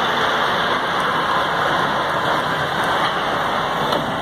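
Caterpillar 773F haul truck's C27 diesel engine running steadily, heard as a dense, even noise outdoors.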